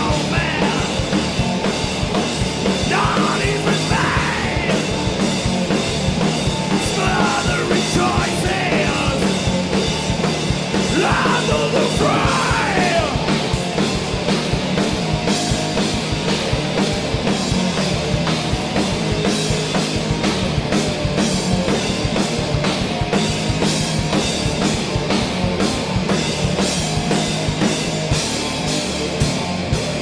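Live punk rock band playing loudly: distorted electric guitars, bass guitar and a drum kit. Shouted vocals run over roughly the first dozen seconds, then the song carries on instrumental.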